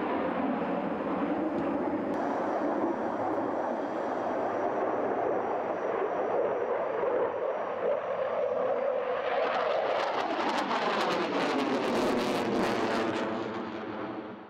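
MiG-35 fighter jet engines making a steady jet noise during a flying display. In the last few seconds a close pass adds a crackle and a falling, sweeping whoosh as the jet goes by.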